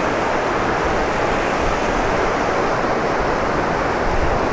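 Mountain creek rushing steadily: a loud, even noise of fast-flowing water.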